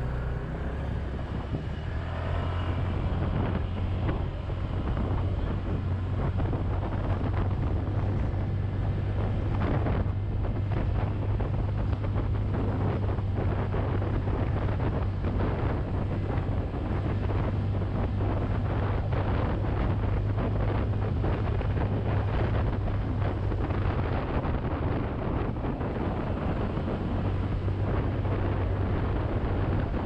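Honda Click 125i scooter's single-cylinder engine running at a steady pitch under load, climbing a steep grade with a passenger aboard. Wind buffets the camera microphone.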